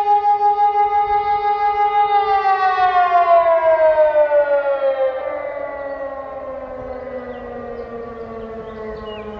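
Civil-defence sirens sounding a test alarm: a steady held tone. About two seconds in, the pitch begins to slide down, and the sound fades from about five seconds in, still gliding lower as the siren winds down.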